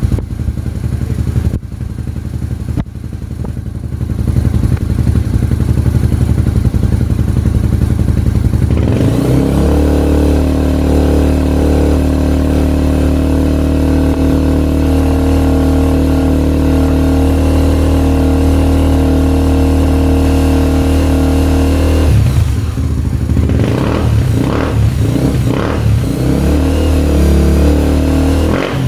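Rebuilt single-cylinder engine of a Honda XR250 Tornado trail bike running, first at a low speed, then held at a raised steady speed from about a third of the way in, then revved up and down unevenly for the last several seconds. The engine is being run to track down a tapping ('tec-tec') noise from the fresh rebuild.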